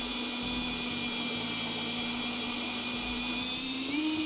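Cordless drill running steadily as a countersink bit cuts into softwood, its motor whine holding one pitch. Near the end the pitch rises a little.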